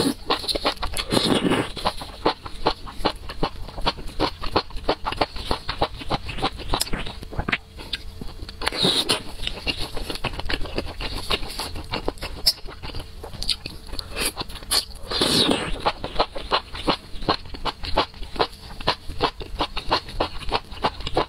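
Close-up eating of spicy skewered food in chili sauce: wet chewing with many quick mouth clicks and smacks. Three longer slurps come about a second in, about nine seconds in and about fifteen seconds in.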